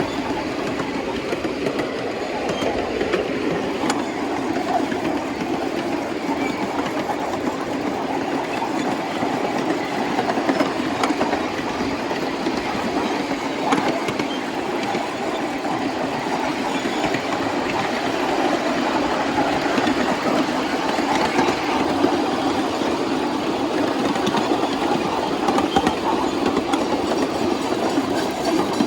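A 7¼-inch gauge miniature train running over the track: a steady, even rumble of wheels on rail.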